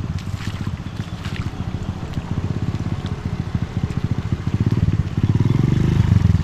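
An engine running close by, a rapid low firing pulse that gets louder and fuller in the last second or so.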